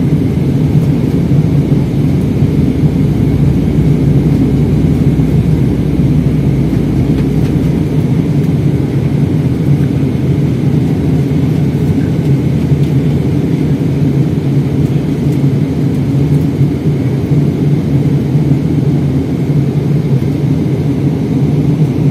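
Steady roar of jet engines and rushing air inside a jet airliner's cabin, heard from a seat over the wing. The deepest part of the rumble eases about eight seconds in.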